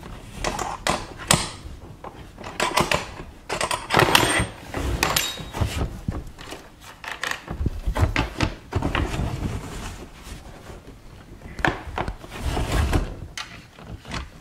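Irregular clicks, knocks and rustling of a hand wrench being worked on the fin's mounting nuts under the bumper, mixed with camera-handling thumps.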